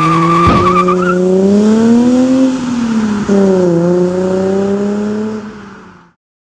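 Car sound effect: a tire squeal in the first second over an engine revving. The engine's pitch climbs, drops suddenly about three seconds in, then holds and fades out, cutting off about six seconds in.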